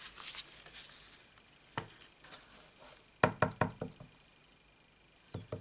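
Clear acrylic stamp block knocking onto a Memento ink pad as the rubber stamp is inked: one knock, then a quick run of about six taps a little over three seconds in, and two more near the end.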